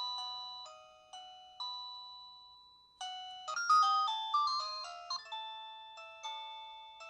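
Electronic doorbell chime playing its ringtone tunes. First comes a slow run of single struck notes, each fading away. After a brief gap about three seconds in, a different, quicker melody starts.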